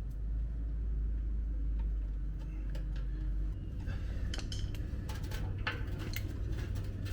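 Light metallic clicks and clinks of hand tools and small parts being handled on a dirt bike's fuel valve, growing busier in the second half, over a steady low hum.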